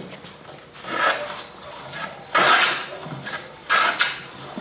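An old Stanley transitional hand plane with a freshly sharpened iron, taking shavings off the edge of a wooden board held in a vise: three planing strokes about a second and a half apart, the first lighter than the other two.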